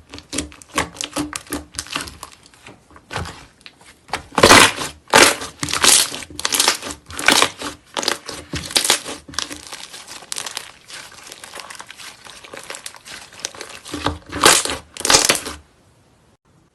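Slime being squeezed and worked, giving rapid crackling and popping with a run of louder squelching bursts. It stops about a second before the end.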